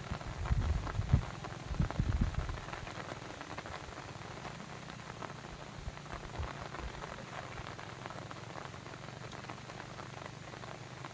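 Steady patter of water made of many dense small drips. A few low thumps stand out in the first two or three seconds.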